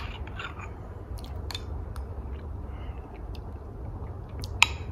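Metal spoon clicking softly a few times against a ceramic mug of soup, then mouth sounds of tasting a spoonful, and one sharp clink near the end. A low steady hum runs underneath.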